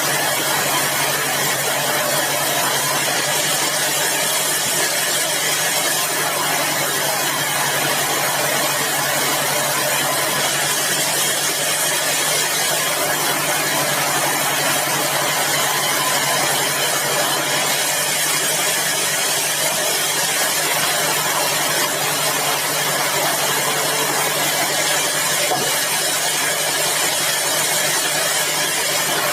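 Sawmill machinery running steadily: an even mechanical drone with a constant low hum, holding the same pitch and level throughout.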